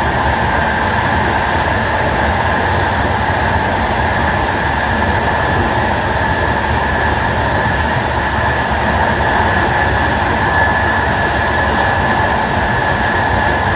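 Intercity passenger train running at speed, heard from the rear of the last coach: a steady rolling rumble of wheels on rail, with a faint steady whine held through it.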